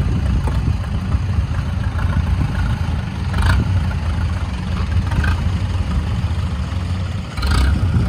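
Engine of a tracked rice carrier running steadily at low speed under a full load of rice sacks, crawling along a slippery grass dike. A few short clatters sound over it, the last near the end.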